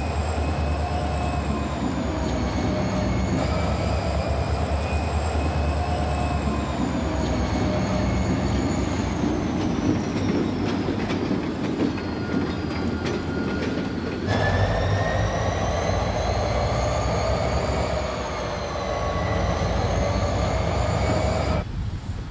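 Steel wheels squealing on curved track as the dead steam locomotive is towed, several high tones wavering slowly in pitch, over the low running of the diesel switcher. The squeal breaks off and starts again about two-thirds of the way through, and fades just before the end.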